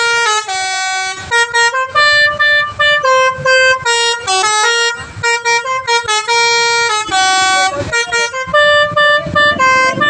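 Indonesian bus 'telolet' multi-tone air horn set, with pianika and basuri voicings, playing a quick melody. Short held notes change pitch several times a second, with brief gaps between them.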